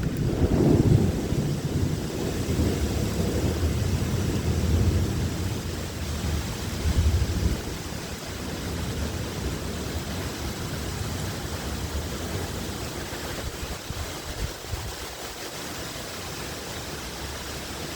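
Thunderstorm: a low rumble of thunder over steady rain and gusting wind of about 35 to 40 mph. The rumble dies down about halfway through, leaving the steady rain and wind.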